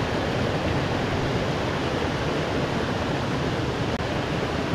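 Steady rush of a small mountain trout stream, its water spilling over a low dam and running through rocky riffles.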